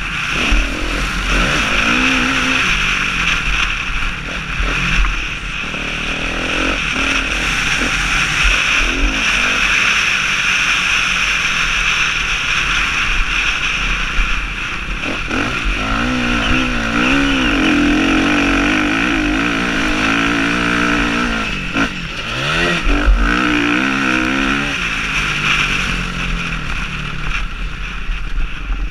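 Motocross bike engine ridden hard, revving up and down with the throttle so its pitch keeps rising and falling, heard close from the on-board camera over a steady rushing noise.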